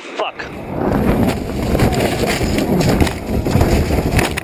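Rally car crashing off the road, heard from inside the cabin. A heavy rumble starts suddenly just after the beginning, with repeated knocks and bangs as the car is thrown about.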